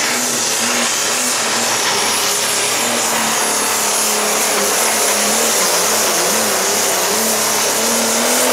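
Turbocharged diesel engine of a New Holland Pro Stock pulling tractor running flat out under full load while it drags the weight-transfer sled down the track. The noise is loud and steady, with the engine note wavering slightly.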